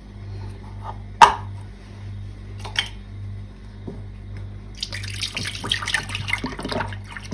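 Milk pouring from a carton into an empty stainless steel pot, a steady splashing that starts nearly five seconds in. Before it come a sharp click about a second in and a smaller one near three seconds, as the carton's closed cap is opened.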